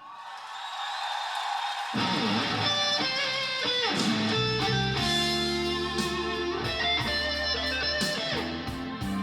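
Instrumental passage of a song played back over a hi-fi system: electric guitar alone at first, then bass and the rest of the band come in about two seconds in, with bending guitar notes.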